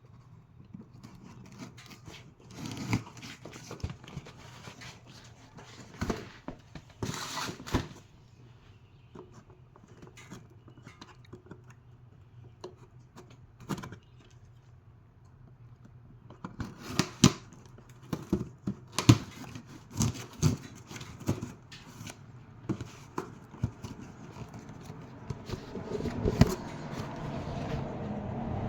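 Hands opening and handling a package: packaging rustling and tearing, with scattered clicks and knocks, the loudest coming in a quick run about two-thirds of the way in. A steady low noise builds up near the end.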